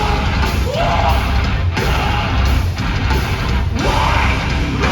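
Metalcore band playing loud and live, with heavy distorted guitars and drums under shouted vocals.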